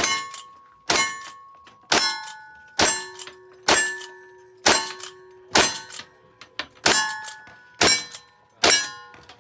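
About ten gunshots, roughly one a second, each followed at once by the ringing clang of a struck steel target. The ring differs in pitch from plate to plate.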